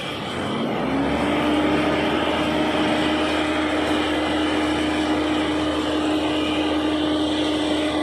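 A road-construction machine's engine speeding up over about the first second, then running steadily with a level whine over a hiss.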